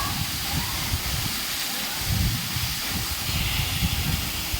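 Waterfall rushing: a steady hiss of falling water, with uneven low rumbling underneath.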